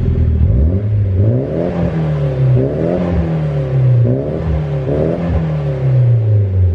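Nissan 180SX's four-cylinder engine revved up and down several times, its pitch rising and falling in repeated sweeps, through its old exhaust with the single dual tip.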